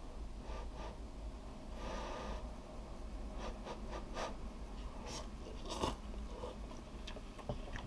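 A person eating cup ramen noodles with chopsticks: a soft blow on the lifted noodles about two seconds in, then slurping and chewing with small wet mouth clicks.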